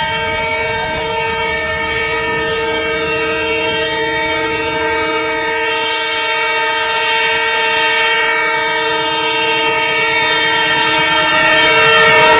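Diesel locomotive horn held in one long, steady blast as the train approaches, growing slowly louder as it nears.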